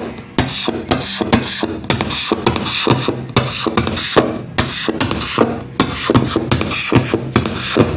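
Audionic Mehfil MH-1212 portable speaker playing a song with a heavy beat and vocals on battery power. It is showing the fault being demonstrated: scratchy, distorted sound that drops out.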